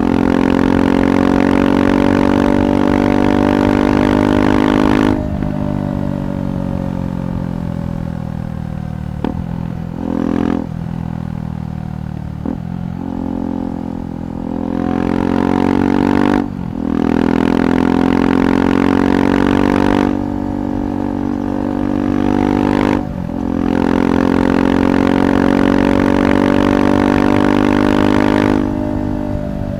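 KTM 390 Adventure's single-cylinder engine through a Red Rooster aftermarket exhaust, pulling hard and then easing off several times. Loud stretches alternate with quieter ones where the pitch slowly falls, with brief sharp dips in between, as in rolling off the throttle and changing gear.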